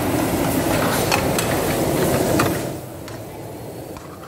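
Commercial kitchen noise: high-flame gas burners rushing under karahi pans, with metal ladle clinks and scrapes against the pans. The noise drops sharply nearly three seconds in.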